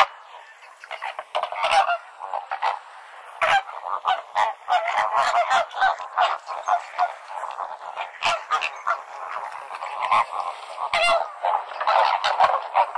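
A flock of flamingos honking: many short, goose-like calls overlapping one another, thinner for the first second or so and then dense and continuous.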